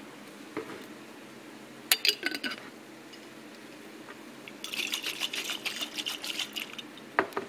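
Water sloshing inside a lidded glass pasta-sauce jar as it is shaken to rinse out the last of the sauce, a dense splashing rattle in the second half. A few short glassy knocks as the jar is handled come about two seconds in.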